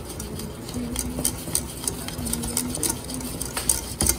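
A metal wire whisk beats quickly around a stainless steel saucepan, making fast, irregular clicks and scrapes as flour is worked into boiling liquid for choux paste. It is whisked fast so the flour doesn't form lumps. A low, steady hum comes and goes underneath.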